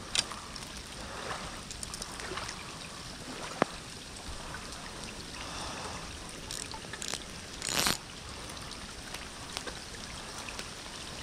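Steady rain falling, an even hiss, with a sharp click a few seconds in and a brief louder rush of noise at about eight seconds.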